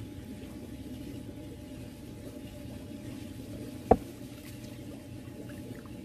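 Steady low hum and water noise of an indoor fishing pond, with one sharp thump about four seconds in.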